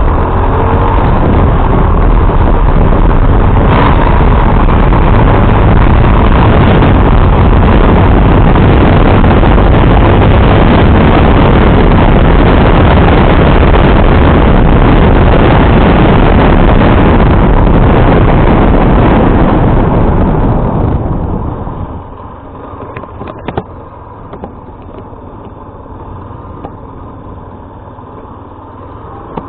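Loud, steady rush of wind and road noise from a moving motorcycle. It drops off sharply about 21 seconds in as the bike slows, leaving a quieter background with a few short clicks.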